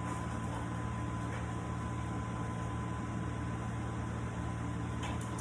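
Electric orbital sander running steadily with an even motor hum, sanding a cured epoxy and cedar tabletop.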